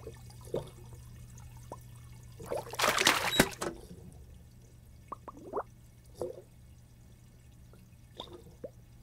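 Cartoon aquarium water sounds: scattered short watery blips and drips over a low steady hum, with a loud splashing burst about two and a half seconds in that ends in a sharp knock as the tank's lid shuts.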